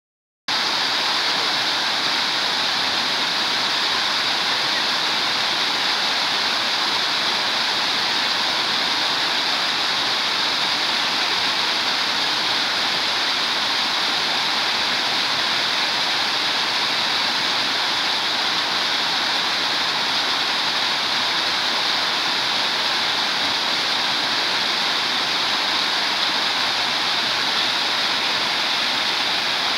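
Small waterfall cascading down a smooth rock face into shallow pools: a steady splashing rush of water that starts about half a second in.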